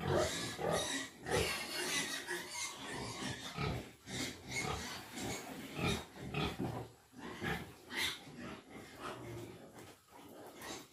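A sow grunting over and over, short grunts about two a second, as she waits at the trough for her feed.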